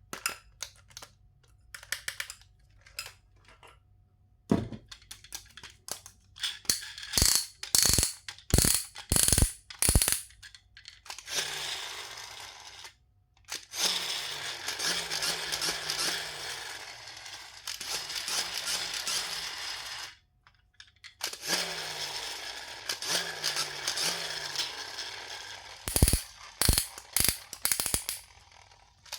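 Plastic toys being handled: a string of sharp clicks and knocks, then long spells of quick ratchet-like rattling, with a few harder knocks near the end.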